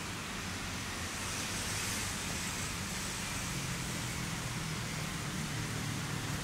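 Steady city traffic noise, with a low hum that grows stronger in the second half and a brief swell of hiss about two seconds in.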